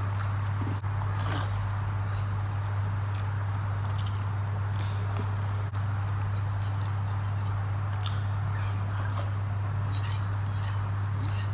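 Fingers mixing and squeezing rice with boiled vegetables and oil on a plate: short wet squelches and clicks, over a steady low hum.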